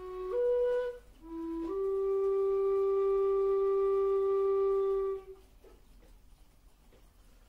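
Metal low whistle (a long-bodied tin whistle) playing a slow melody: a few short notes stepping upward, then one long held note that stops about five seconds in, followed by a breath pause.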